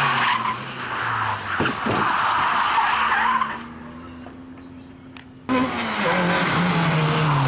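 A Toyota MR2 rally car sliding on wet tarmac, tyres skidding over its engine, with two sharp knocks about a second and a half in; the skid noise dies away and the engine carries on quieter. About five and a half seconds in the sound cuts suddenly to another rally car's engine revving, its pitch dipping and rising.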